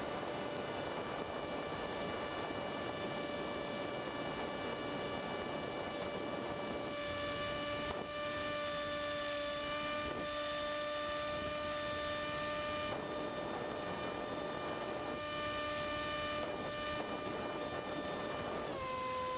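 The electric motor and propeller of a Multiplex EZ Star model plane whining steadily in flight, heard from the onboard camera, with wind rushing past. Near the end the whine steps down in pitch as the motor slows.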